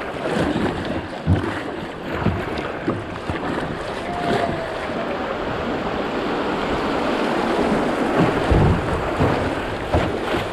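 Rushing water of a river cascade, with wind on the microphone and a few low thumps, one about a second in and two more near the end.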